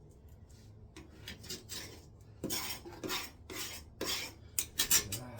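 Scraping strokes against the toilet flange, cleaning off old wax-ring gunk and rust. Faint at first, then a run of scrapes about two a second from roughly halfway, quickening into several sharp strokes near the end.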